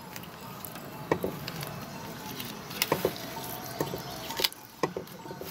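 A knife working along the rib bones of a raw trout fillet on a wooden cutting board, with a handful of small, sharp clicks spread through it as the blade meets and pops the bones.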